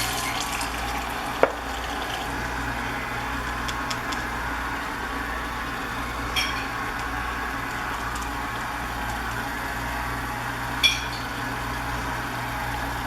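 Water running into the insect trap in a steady, gentle flow, drowning the trapped yellow jackets, over a constant low hum, with three short knocks.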